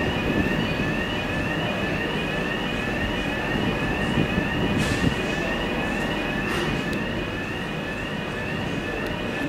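An electronic warning tone, short rising chirps about twice a second, repeats throughout over the steady low rumble of idling diesel locomotives, with a couple of faint knocks about five and six and a half seconds in.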